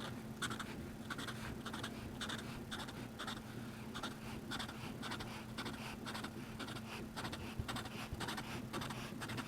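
A felt-tip marker scratching on the paper of a drawing pad in many short strokes, a few each second, as small raindrops are coloured in. A faint steady hum runs underneath.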